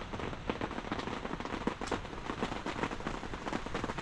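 Wood fire crackling with irregular sharp pops, over the steady patter of heavy rain.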